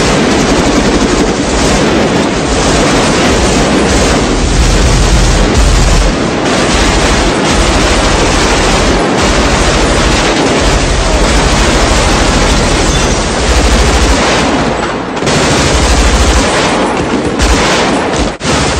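Sustained, dense gunfire, the shots running together into a continuous heavy, booming barrage, with a couple of brief breaks near the end.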